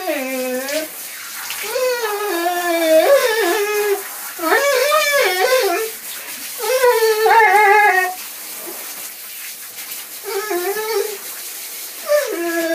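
A dog howling in drawn-out, wavering notes, about six bouts of one to two seconds each, while water from a handheld shower head runs steadily over it in a tiled bathtub.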